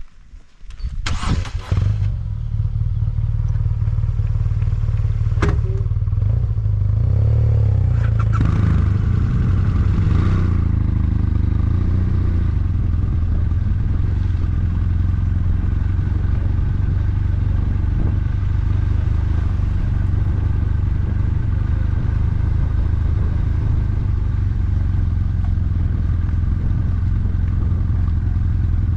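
BMW F800GT parallel-twin motorcycle engine starting about a second in, then running at a steady idle.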